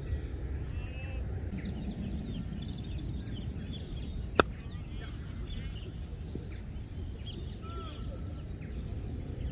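Small birds chirping and calling again and again over a steady low rumble. One sharp crack stands out a little over four seconds in.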